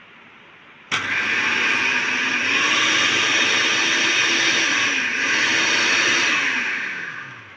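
West Point food processor's copper-wound motor switched on about a second in, spinning the chopping blade in the empty bowl with a steady whine. It is switched off near the end and spins down with falling pitch.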